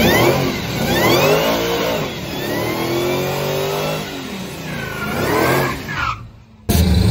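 GMC Sonoma pickup's engine revving hard during a burnout, its pitch rising and falling in several pulls over the hiss of the spinning rear tyres. About six and a half seconds in it cuts off abruptly and gives way to a steady engine idle.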